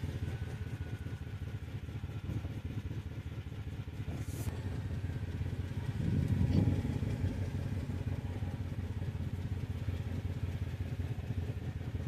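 A small vehicle engine running steadily while driving slowly, with a rapid low pulse; it gets louder for a moment about six seconds in.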